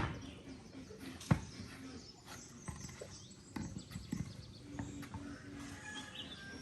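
Sharp knocks: a loud one at the start and another about a second and a half later, followed by lighter, irregular tapping.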